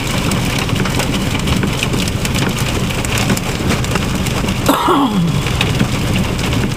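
Hailstorm with strong wind: a loud, steady rush dotted with many sharp clicks of hailstones striking. A short falling tone cuts through about five seconds in.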